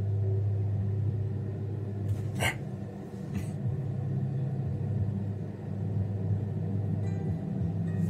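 Low, dark droning background music, a few deep held tones, with two short sharp clicks about two and a half and three and a half seconds in.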